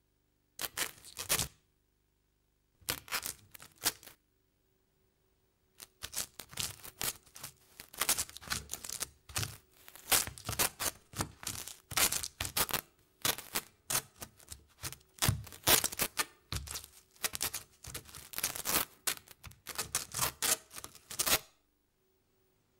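Close rustling and crackling of a cotton shirt being unbuttoned and pulled open. It comes in two short bursts, then a long, dense stretch of crackles that stops shortly before the end.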